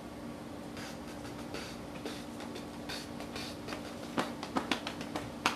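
A steady low hum with a quick, irregular run of sharp clicks and taps starting about four seconds in, the loudest one near the end.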